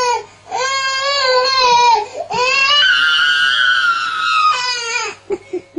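Baby crying in frustration. Two long wailing cries come first, then a longer, higher-pitched cry from about two seconds in, followed by a few short sobs near the end.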